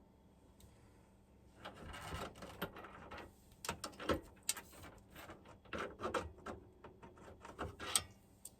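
Tools and hardware being handled: an irregular run of light knocks, clicks and rustling, starting about a second and a half in.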